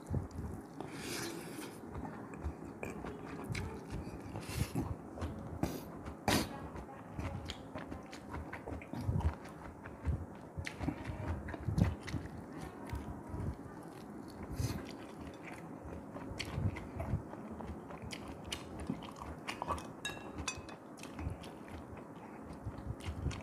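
A person chewing and biting while eating fish head soup, with many small irregular clicks throughout.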